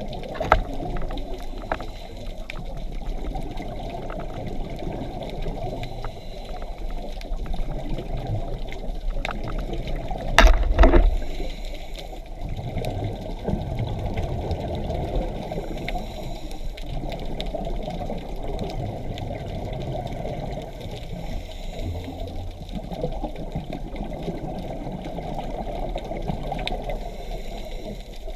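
Scuba diver's regulator exhaust bubbles gurgling, heard underwater as a steady muffled rush of water noise. A single louder burst comes about ten seconds in.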